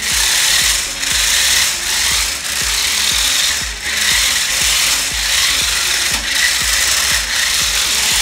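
C996 toy RC off-road car with mecanum wheels driving on a tile floor. Its small electric gear motors whir, with a fine ratcheting clatter from the gearing and wheels, and the sound swells and dips every second or so as it changes direction.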